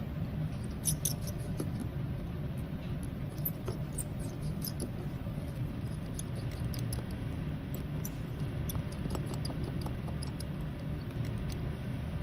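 Faint, scattered tiny clicks and scrapes of small tools working on a digital wristwatch's case during a battery change, over a steady low hum.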